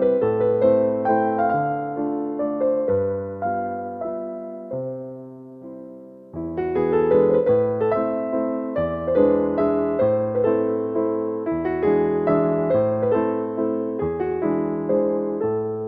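Slow, gentle piano music: held melody notes over low bass notes. The phrase fades out about five or six seconds in, and the playing starts again louder just after.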